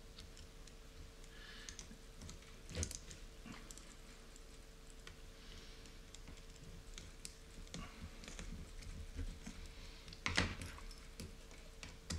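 Small clicks and taps of a hand screwdriver and small metal parts on an anodized aluminium RC car chassis as a screw is fitted, with two louder knocks, one about three seconds in and one near the end.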